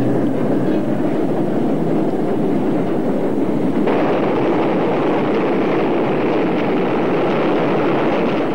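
Subway train running at speed, a steady dense rumble and rattle of wheels on rails. About halfway through it turns louder and brighter as the train passes close by, then cuts off abruptly at the end.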